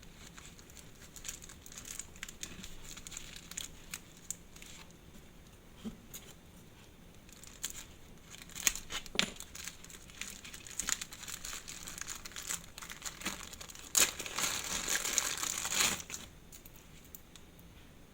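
Packaging being crinkled and pulled open by hand, with scattered small crackles and clicks and a louder spell of continuous crinkling near the end.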